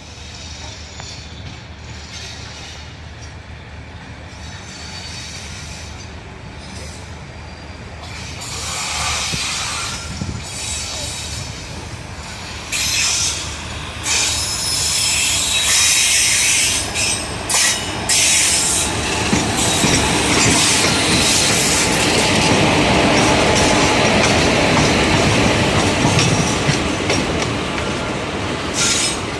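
Passenger express train running on the track, the rolling noise of its wheels on the rails getting louder from about eight seconds in and staying loud, with some irregular knocks along the way.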